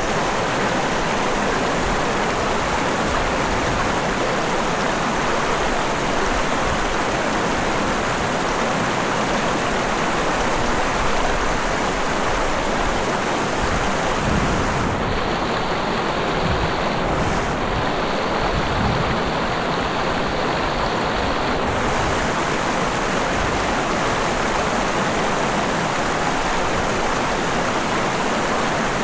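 Mountain river flowing, a steady, even rush of running water.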